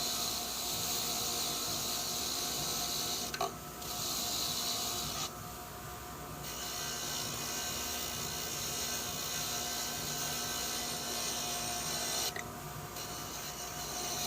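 Bench wire wheel spinning while a corroded sprayer pump part is held against it, the wire bristles scrubbing corrosion off the metal with a steady hissing scrape. The scraping drops out briefly three times as the part is lifted off.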